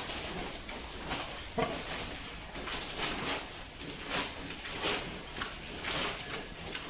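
Pigs moving and snuffling in their pens, with scattered short knocks and rustles.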